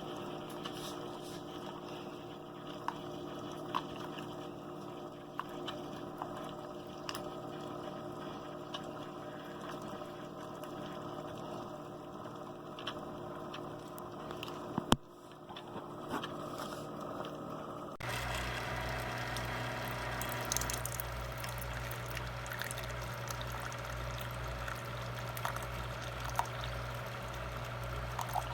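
Single-serve pod coffee maker running with a steady hum and a few small clicks, then a sharp click about halfway. About two-thirds in, the sound switches to a low pulsing pump with liquid running, as the brewer pumps hot water through the pod into the cup.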